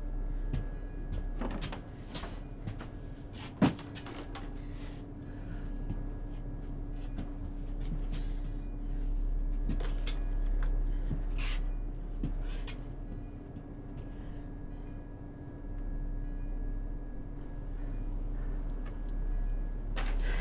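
Scattered small clicks and knocks, like handling or latch noises, with one sharp knock about three and a half seconds in, over a steady low hum.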